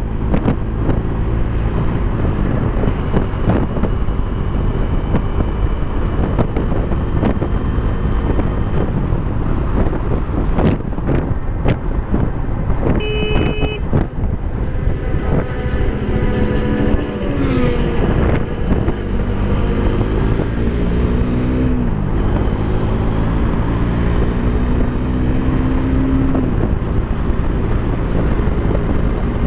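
Bajaj Dominar 400's single-cylinder engine pulling hard at highway speed, heard from the rider's seat under heavy wind rush on the microphone. In the second half the engine note climbs and drops back about three times as it shifts up through the gears. A brief horn toot sounds about halfway through.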